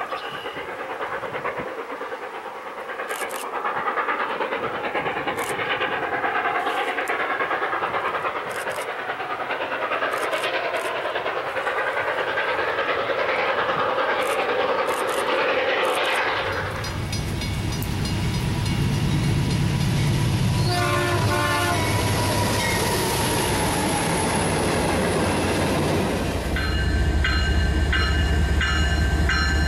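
A steam locomotive hauling a passenger train works past with a steady hiss and rumble, with scattered sharp clicks. After about 16 s a CN diesel freight locomotive takes over: a deep engine rumble that grows louder as it comes close, with a run of stepped tones partway through and, near the end, steady ringing tones that break about twice a second.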